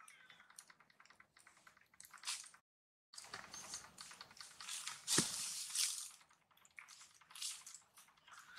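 Scattered crackling and rustling of dry leaves and grit as long-tailed macaques and a newborn baby move about on the dirt ground, with a sharper tap about five seconds in. The sound drops out completely for about half a second near three seconds in.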